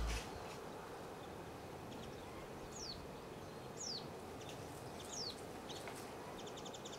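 Faint outdoor ambience with a small bird calling: three thin, high, down-slurred whistles a second or so apart, a few short chirps, and a quick trill of rapid ticks near the end.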